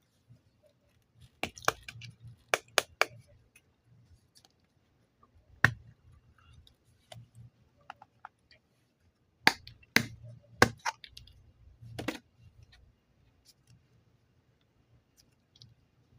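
Sharp, irregular clicks and snaps of clay and its packaging being handled: about ten separate clicks, some in quick pairs or triples, over a faint low hum.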